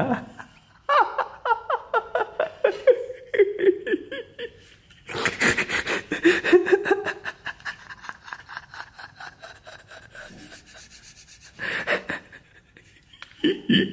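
A man laughing in two runs of quick pulses that fall in pitch, with shorter noisy bursts later on.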